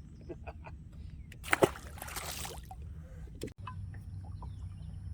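A single splash of water about a second and a half in, with sloshing after it, over a low steady rumble and scattered light knocks.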